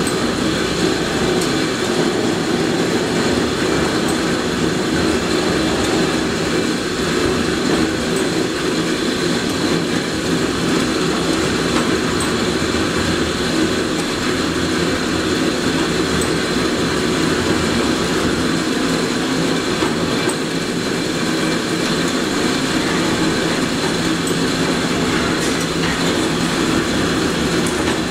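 Automatic chapati-making machine running: its motor-driven rotating griddle gives a steady mechanical hum with constant tones over a noisy background.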